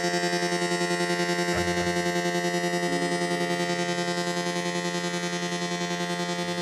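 Guitar drone processed through effects pedals: a sustained, many-layered chord that pulses rapidly and slowly fades. A low note comes in about a second and a half in, and another higher note about a second later.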